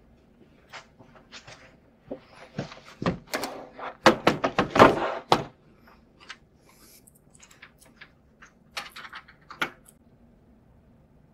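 Thunks, knocks and clatter as a Dell XPS desktop tower is handled and set down on a desk, loudest about four to five seconds in. A few lighter clicks follow near the end.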